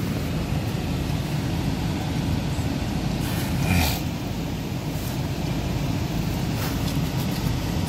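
Steady low rumble inside a car cabin, with a brief louder noise a little before halfway through.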